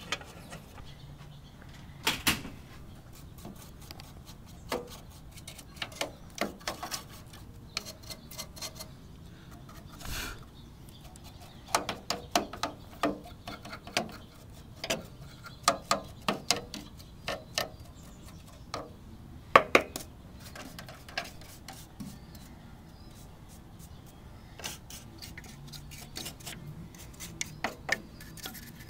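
Scattered clicks and light knocks of a desktop computer's plastic and metal parts being handled while it is brushed clean of dust.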